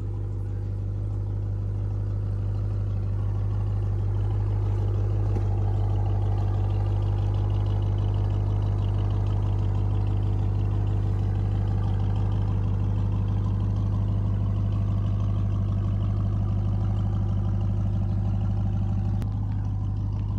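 Off-road truck engine running steadily at low crawling speed, a low, even engine hum that grows a little louder a few seconds in.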